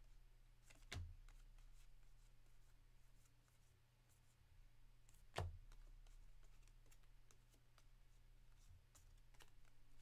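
Near silence: baseball cards from a 2024 Topps Series 1 pack being flipped through by hand, faint card-on-card ticks and slides, with two soft knocks about a second in and about five seconds in. A low steady hum underneath.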